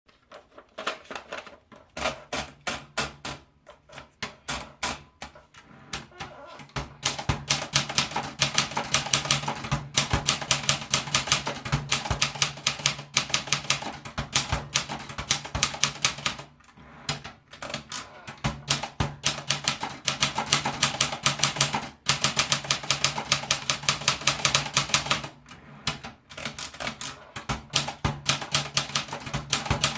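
Olympia Traveller De Luxe manual portable typewriter being typed on: quick runs of key strikes, several a second, broken by short pauses, over a steady low hum.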